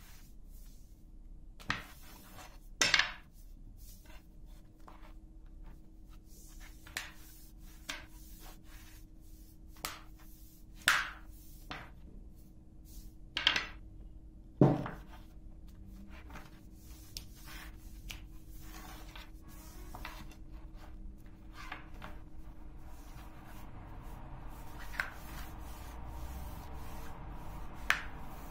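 Long thin wooden rolling pin working a sheet of pastry dough on a floured table: soft rolling and rubbing with irregular knocks and taps of the pin against the tabletop, a few of them louder.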